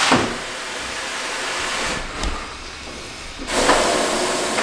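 Hiss of compressed air: a steady hiss for about two seconds, a quieter lull, then hissing again from about three and a half seconds in.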